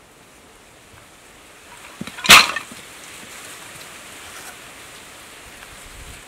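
A bundle of split bamboo strips dropped onto the dirt, landing with one short, loud clatter about two seconds in, with a few lighter knocks just before it.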